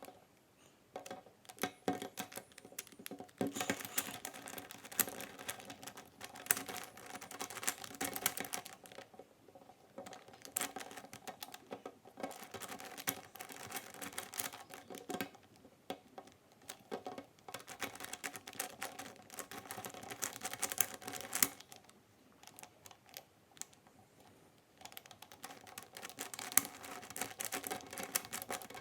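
Plastic clicking and clacking of a Kilominx, a dodecahedral twisty puzzle, as its faces are turned in quick runs of moves, broken by a few short pauses.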